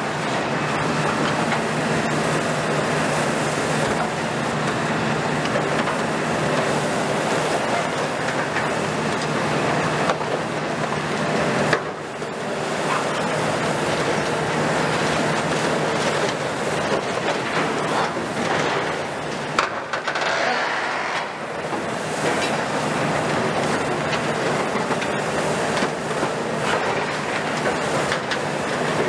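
Kiesel KMC 400 long-front demolition excavator (on a Hitachi ZX350 base) running steadily under load while its attachment tears and crumples steel framing and sheet-metal cladding. The metal gives continuous crunching, rattling and scraping over the engine and hydraulics.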